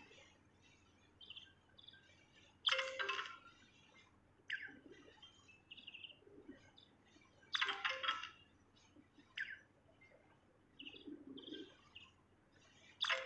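Songbird singing: scattered short chirps and quick falling notes, broken by loud bursts of song about three seconds in, around eight seconds, and again near the end.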